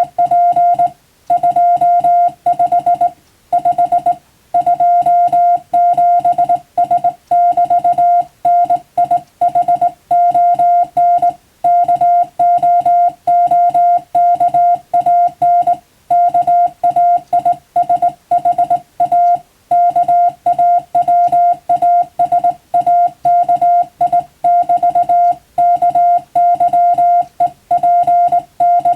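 Morse code being sent as a single steady tone of roughly 700 Hz, keyed on and off in rapid dots and dashes, with short gaps between character groups.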